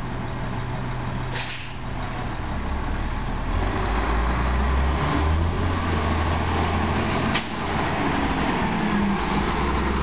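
Crane Carrier rear-loader garbage truck's diesel engine pulling away hard and driving past, the heavy engine sound building about three and a half seconds in. A short burst of air-brake hiss comes about a second and a half in, and a sharp click near seven seconds is followed by a brief dip in the engine sound.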